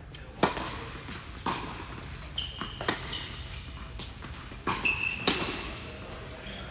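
Tennis ball struck by rackets in a doubles rally on an indoor hard court: a sharp pop from the serve about half a second in, the loudest, then four more pops of racket hits and bounces over the next five seconds. Two short high squeaks of shoes on the court come between the hits.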